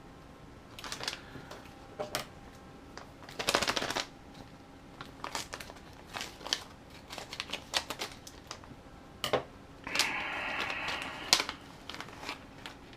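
Hands handling small plastic drone parts and adhesive: scattered clicks, taps and short rustles, with a longer rustling or peeling sound lasting about a second and a half near the end.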